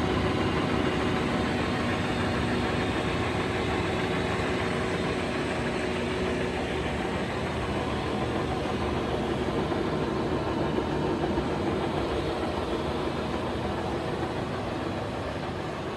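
Colchester 25 engine lathe running under power, its gearing and spindle drive giving a steady mechanical hum with a faint steady tone. It eases off slightly toward the end.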